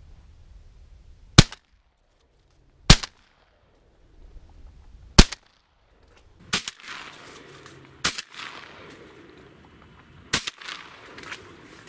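Shotgun shots: six sharp, loud reports spread over about ten seconds. The later ones trail off in a rolling echo across the water.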